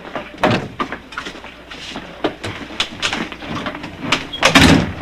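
Footsteps and knocks on a wooden floor with door handling, ending in a loud door bang about four and a half seconds in.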